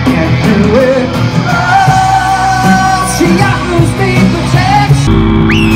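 Live rock band playing loud, with electric guitars, drums and a sung lead vocal. About five seconds in, the band sound cuts off abruptly.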